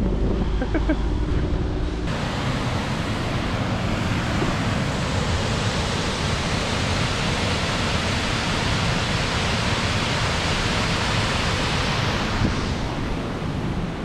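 Steady rushing of a waterfall, starting abruptly about two seconds in and thinning out near the end.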